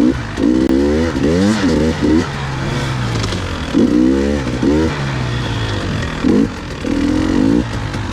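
Two-stroke enduro dirt bike engine revving hard and backing off again and again, its pitch sweeping up and dropping with each burst of throttle.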